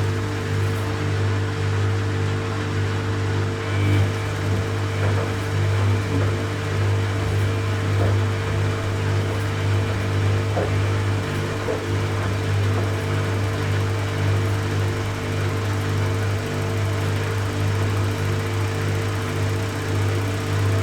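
Samsung Eco Bubble washing machine on its spin cycle, the drum spinning at a steady speed with a constant low hum and motor whine.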